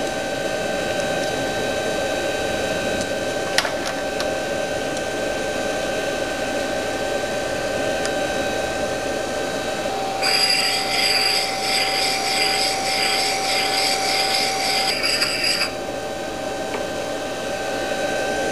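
A valve grinder's motor runs steadily, with a single sharp click a few seconds in. About ten seconds in, its stone wheel grinds the pad of a Triumph Spitfire rocker arm for about five seconds, a higher rasping grind over the motor, refacing the worn pad.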